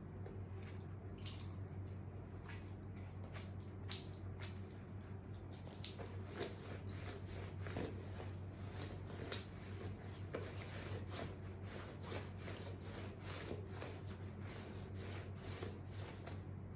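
Water dripping and splattering onto the floor from a soaked sweatshirt sleeve as it is squeezed by hand, with the squish of wet fabric. The drips are scattered at first and come several a second from about halfway in.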